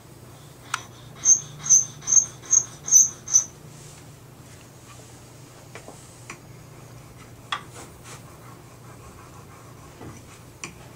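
Gold jewellery scraped back and forth on a black touchstone, six quick strokes about two a second, leaving a streak of metal for an acid test of its karat. A few light clicks follow as the pieces are handled.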